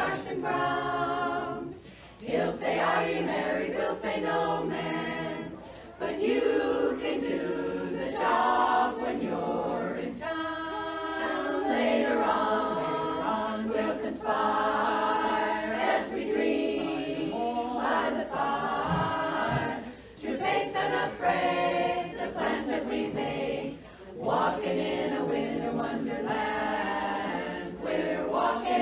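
Women's barbershop chorus singing a cappella in four-part close harmony, in phrases a few seconds long with short breath breaks between them.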